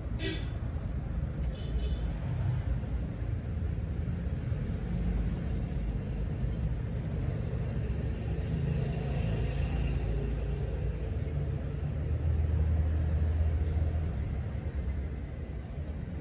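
Steady low rumble of background noise, stronger for a couple of seconds near the end, with a single click right at the start.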